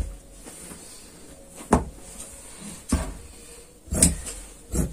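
Tailor's shears cutting through cloth on a cutting table: a few short, sharp snips and clacks, spaced about a second apart and coming closer together near the end.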